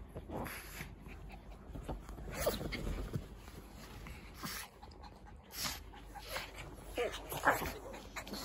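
A Shih Tzu and a Pug play-fighting at close range: irregular dog noises and panting, with a few short whiny squeaks, the loudest about seven and a half seconds in, over the rustle of bedding.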